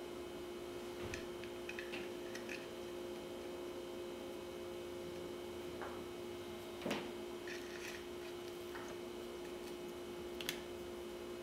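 Light clicks and taps of small parts being fitted into an HK416 .22 lower receiver while the magazine release is assembled, with a sharper click about seven seconds in and another near the end, over a steady low hum.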